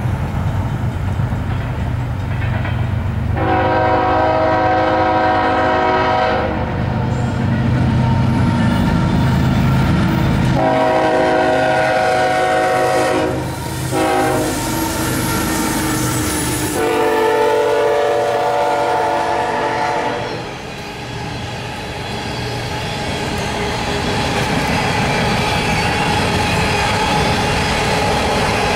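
BNSF GE ES44AC diesel locomotives passing and sounding their air horn in three long blasts, several notes at once, over the deep rumble of their 12-cylinder GEVO engines. Once the locomotives are by, coal hopper cars roll past with steady wheel-on-rail clatter.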